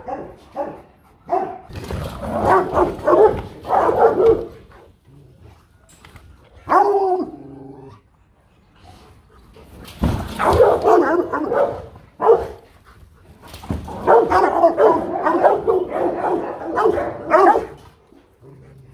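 Rottweilers barking in fast volleys of repeated barks, with a couple of short lulls between volleys.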